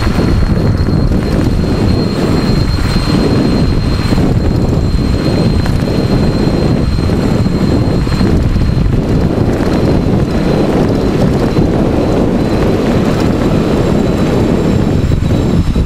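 Wind rushing over the microphone and tyre noise from a 100-volt-class electric bike riding at speed on asphalt: a loud, steady rumble with a thin, steady high whine above it.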